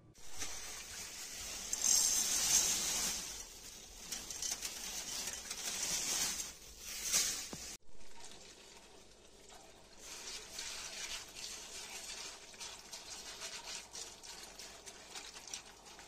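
Kitchen tap water running and splashing into a bowl of rolled barley flakes while hands stir and rub the wet grains. The sound breaks off for an instant about eight seconds in, then the watery swishing goes on.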